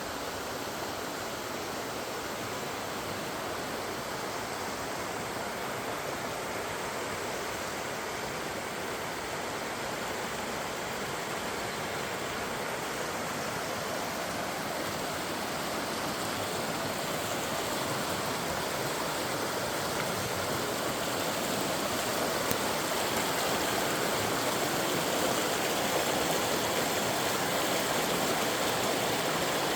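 Steady rushing water, growing gradually louder.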